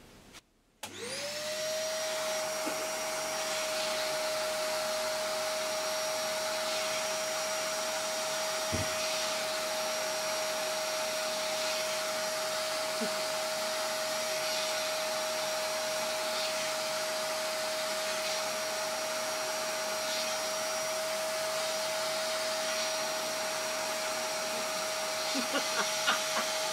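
Vacuum cleaner switched on about a second in, its motor quickly rising to a steady whine and running on without a break, drawing air through a hand-worked bellows air engine.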